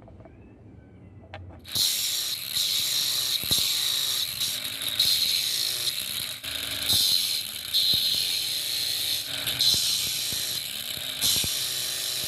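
Angle grinder running with an abrasive disc, a small block pressed against the spinning disc to grind its faces flat: a loud, steady, hissing grind that starts suddenly about two seconds in.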